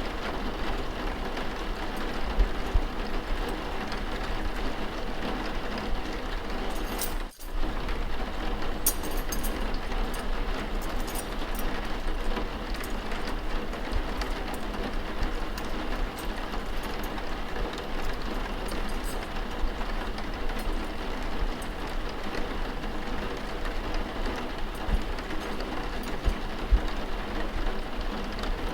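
Steady rain, an even hiss with a low rumble under it, cut by a brief sudden dropout about seven seconds in. Faint scattered clicks ride on top after that.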